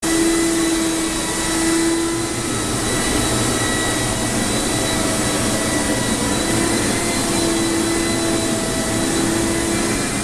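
Commercial Dri-Eaz dehumidifiers and an air mover running for water-damage drying: a steady blowing rush with a fan whine and a hum that fades and comes back.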